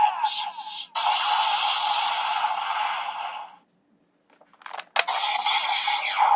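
Electronic sound effect from a Kamen Rider capsule toy: a loud hissing, crackling noise that cuts off suddenly about three and a half seconds in. After a second of silence come a couple of sharp clicks, and the noise starts again.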